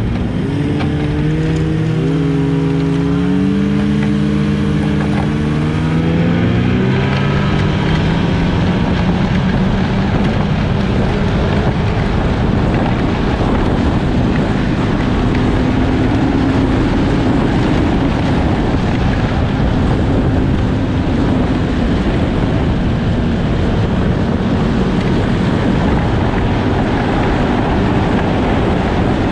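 Snowmobile engine running while riding: its pitch climbs in steps over the first several seconds, then it settles into a steady, dense drone.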